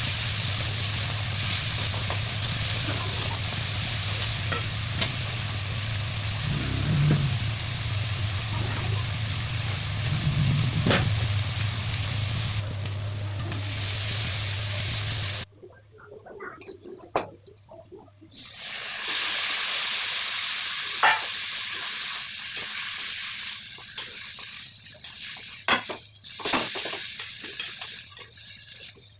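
Mutton curry frying and sizzling in a pan while it is stirred, with scrapes and knocks of the utensil against the pan over a steady low hum. About halfway through the sizzle cuts off abruptly, leaving a few seconds of scattered clicks, then the sizzling and stirring return.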